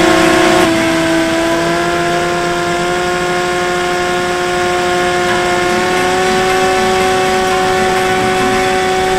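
Bix3 RC plane's electric motor and propeller whining steadily in flight, heard from an onboard camera with rushing air noise. The pitch dips a little about half a second in, then slowly climbs again.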